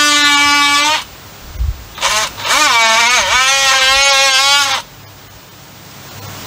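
Cordless oscillating multi-tool cutting into a wooden 4x4 post: a high, steady motor whine that stops about a second in and starts again a second later, its pitch sagging and recovering as the blade bites into the wood, then cutting off near the end.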